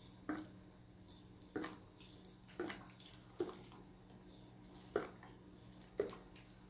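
Faint, irregular glugs and plops, one or two a second, from a bottle of cyan ink turned upside down into the fill port of an Epson L395 EcoTank printer, draining into the tank as air bubbles up into the bottle.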